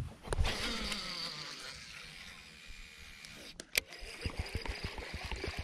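Insects droning steadily in a high, even hum. There are a couple of sharp knocks at the start and again about three and a half seconds in, then a run of low, irregular thuds from about four seconds on.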